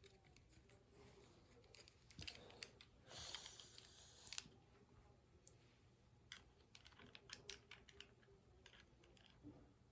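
Faint, scattered small clicks and taps of plastic toy parts being handled, with a brief rustle about three seconds in.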